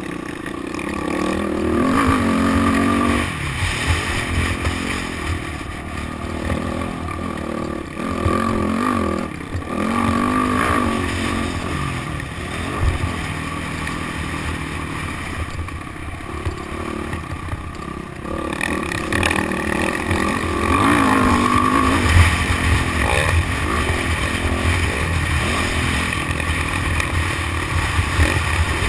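Motocross bike engine revving up and falling away again and again as the bike rides round a dirt track, its pitch rising and dropping with the throttle, over steady rushing noise.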